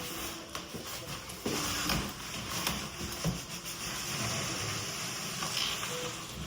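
Continuous rustling and rubbing noise, as of something brushing against the recording phone's microphone.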